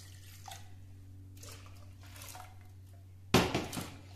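Cold water pouring from a plastic bottle into a steel pot of whisked curd. After faint handling noises, a sudden splashing rush comes about three seconds in as the stream hits the pot, then settles quickly.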